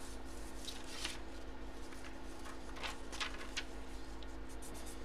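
Paper and trading cards being handled on a tabletop: a few short, scattered rustles and scratches, over a faint steady hum.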